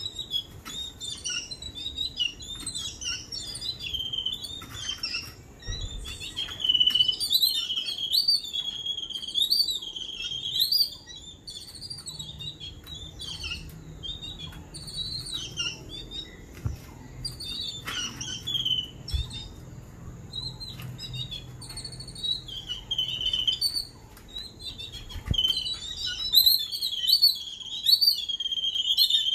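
A group of babblers, the 'seven sisters', calling almost without a break: many quick wavering chirps and chattering notes overlapping. The calls are loudest near the end.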